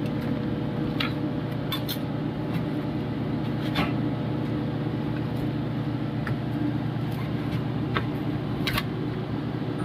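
Steady machine hum of kitchen equipment, with scattered sharp ticks and scrapes from a steel rolling pizza cutter slicing a pizza in its cardboard box.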